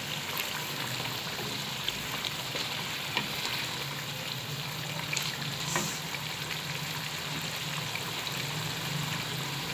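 Mutton liver curry sizzling and bubbling in an aluminium pot as its gravy is cooked down dry, with a wooden spoon stirring through it at times. A steady low hum runs underneath.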